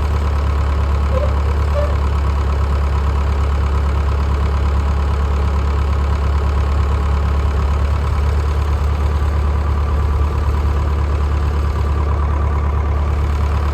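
Massey Ferguson Super 90 tractor engine running steadily with a deep, even drone while its hydraulics open the tailgate of a New Idea round baler.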